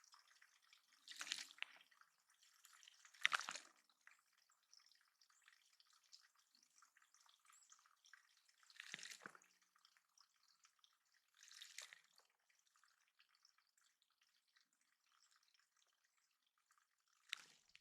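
Water dripping and splashing into a small backyard bird pond: a handful of separate splashes spaced several seconds apart over a faint trickle.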